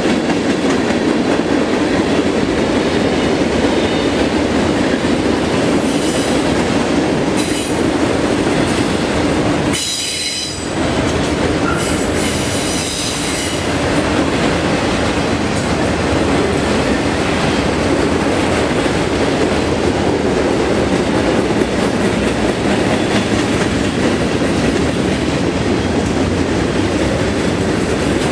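Freight train cars rolling past, a steady noise of steel wheels on the rails. Brief high wheel squeals come in about ten seconds in and again a few seconds later.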